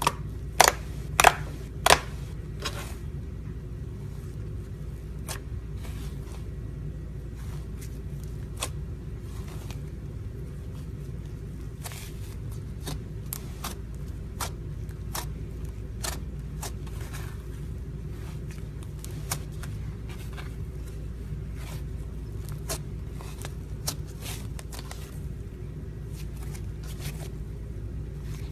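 Slime being pressed and squished, giving sharp clicking pops: three loud ones in the first two seconds, then fainter scattered clicks, over a steady low hum.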